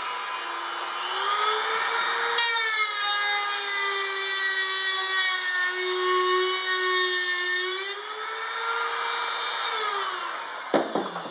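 Dremel rotary tool running with a pointed bit against the edges of the pockets in a steel blade, chamfering them: a steady high whine. It drops slightly in pitch about two and a half seconds in, rises back at around eight seconds and stops near the end.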